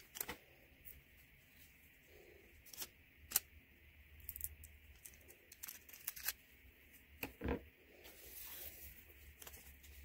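Small scissors snipping a small paper cutout, with scattered sharp clicks and soft rustles of paper being handled and pressed onto a journal page. The strongest clicks come a little past a third of the way in and again past halfway, and a soft rustle follows near the end.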